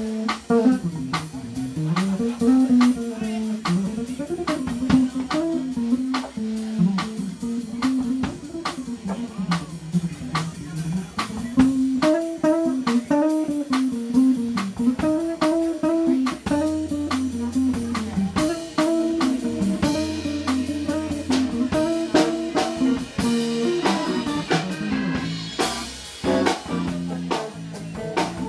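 A live band playing a Hammond B-3 organ, electric guitar, bass and drum kit, with a steady drum beat and a cymbal crash near the end.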